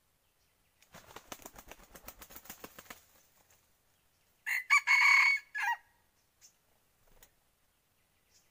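A rooster beats its wings in a rapid flurry for about two seconds, then crows once. The crow is short and loud, with a couple of breaks in it. It is a decoy rooster's crow, of the kind used to lure wild junglefowl.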